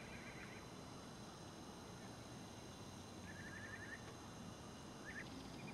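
Faint steady background hiss with a quick run of short, high chirps about three seconds in and a couple more near the end, from a small bird.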